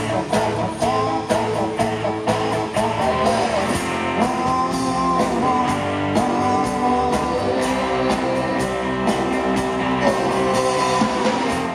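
A rock band playing: electric guitars and drums with a lead singer, a steady rock-and-roll beat.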